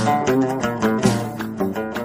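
Background music of plucked strings: a quick run of notes with sharp attacks, each dying away, in a steady flowing pattern.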